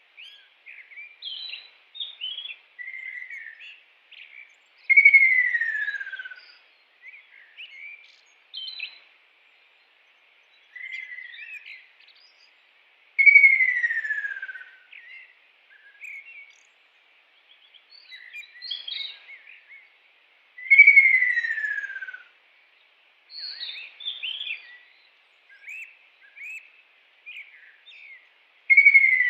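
Kingfisher calling: a loud falling call about a second and a half long, repeated four times roughly eight seconds apart, with short chirps in between.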